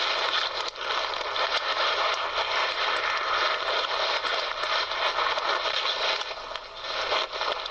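Steady loud hiss with scattered crackles.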